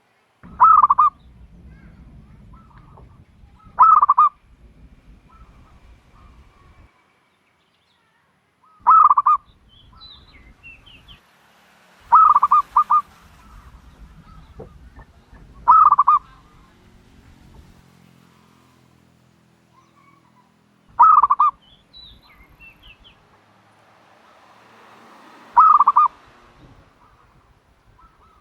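A dove cooing: seven short, loud coos, each made of a few quick notes, repeated every three to five seconds.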